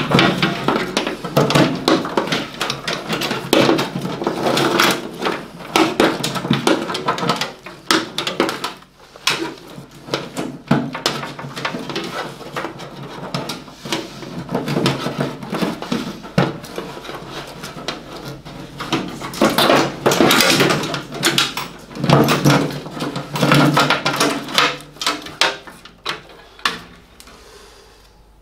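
Morris Minor's old wiring loom being worked loose and pulled out of the engine bay: irregular rustling of wires with clicks and knocks of connectors and clips against bare sheet metal, dying down near the end.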